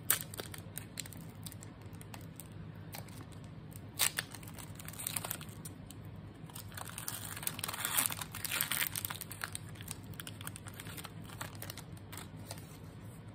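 Foil wrapper of a Pokémon booster pack being torn open and crinkled by hand: irregular rustling and small clicks, with a sharp crackle about four seconds in and denser crinkling a little after.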